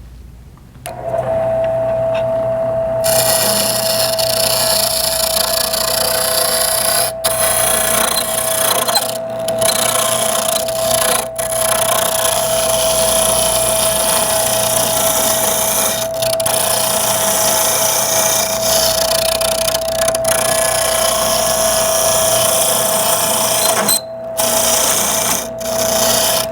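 Wood lathe starting up about a second in with a steady whine. From about three seconds in, a carbide-tipped turning tool cuts a spinning wenge blank down to a cylinder, a continuous rough cutting noise broken briefly a few times.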